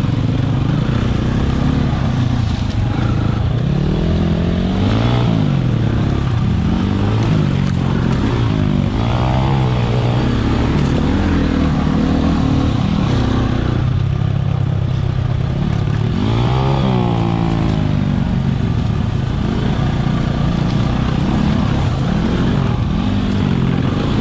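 Husqvarna 300 two-stroke dirt bike engine riding single-track trail, its pitch repeatedly rising and falling as the throttle is worked over the rough ground, with the bike rattling over the dirt.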